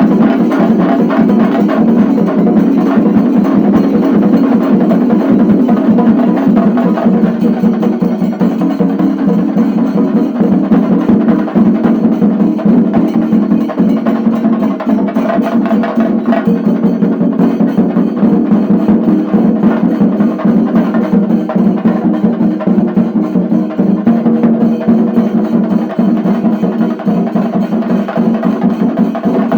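Shinkari melam: a group of chenda drums beaten fast with sticks, with ilathalam hand cymbals, in a dense unbroken rolling rhythm.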